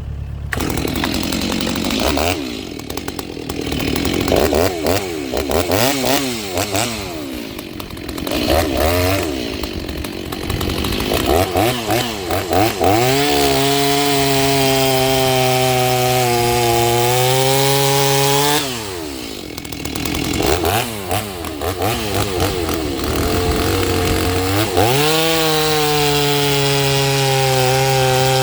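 Stihl chainsaw, rebuilt with a Hipa cylinder kit and not yet broken in, blipped up and down repeatedly, then held at high revs for about five seconds. It drops back and blips again, then is held high a second time near the end.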